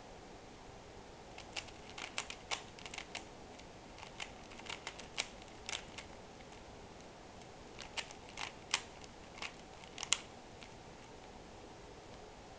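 Rubik's cube being turned by hand in quick runs of moves, its plastic layers clicking and clacking. The clicks come in irregular clusters separated by short pauses.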